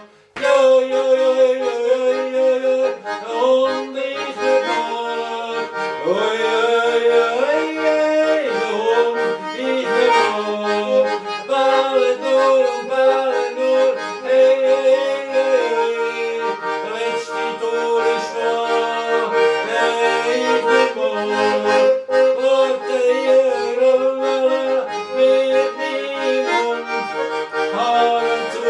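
Schwyzerörgeli, a Swiss diatonic button accordion, playing a lively folk tune, resuming after a momentary break at the very start.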